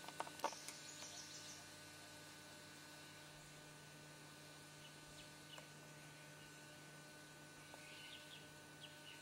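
Near silence with a steady low hum, a few faint footsteps on dry leaves in the first second, and a few faint bird chirps near the end.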